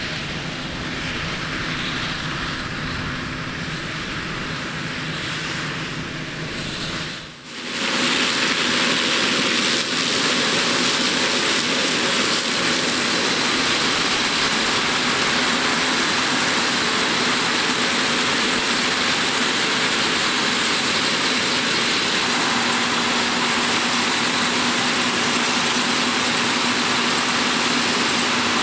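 Heavy farm machinery engines running steadily. About seven seconds in, the sound cuts from a lower engine drone to a louder, hissier steady machine noise.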